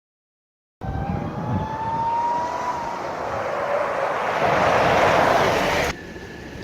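Silence for the first second, then a Sprintex supercharger on a Jeep Wrangler whining under acceleration: a thin whine rising slowly in pitch over growing engine and road noise. It cuts off suddenly about six seconds in to a quieter, steady higher whine.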